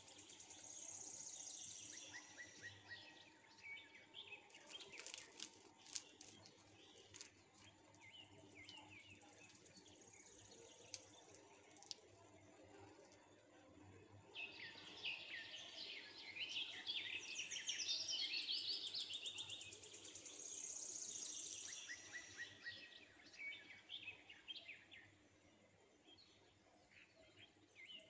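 Faint chirping and singing of several small birds, calls overlapping, with a dense stretch of rapid twittering about halfway through that eases off a few seconds later.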